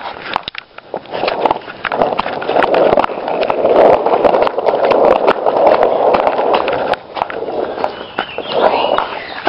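Small plastic toy skateboard's wheels rolling over a concrete sidewalk: a steady rolling rattle with small clicks, loudest in the middle and dropping off about seven seconds in.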